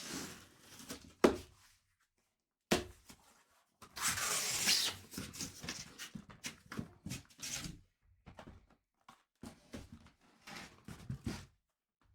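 A sealed cardboard case of trading-card hobby boxes being ripped open and handled: a rough tearing rip about four seconds in, lasting about a second, among many sharp cardboard knocks, taps and rustles.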